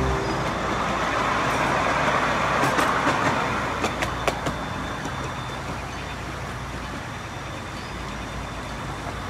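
Ride-on miniature train running along its track: a rolling rumble of wheels on rail that swells and then eases as the train goes away round the curve, with a few sharp clicks about four seconds in.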